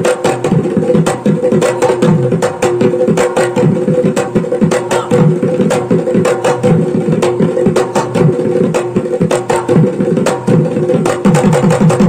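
Assamese dhols (dhul) beaten together in a fast, dense drumming rhythm, over a steady held tone.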